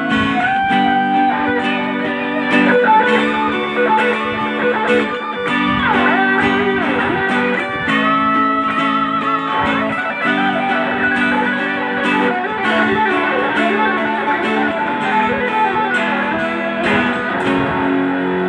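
Electric guitar solo: a lead electric guitar plays melodic single-note lines with bent notes and vibrato, over a second electric guitar playing chords.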